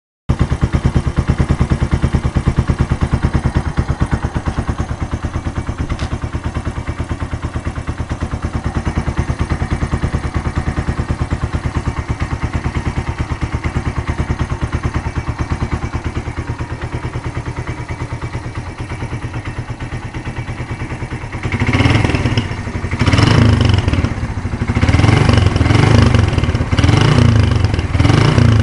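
Suzuki Intruder 125 single-cylinder engine running through a cut-down (chamfered) exhaust, idling with an even pulsing beat. About 21 seconds in it is revved in a series of short throttle blips, each louder than the idle.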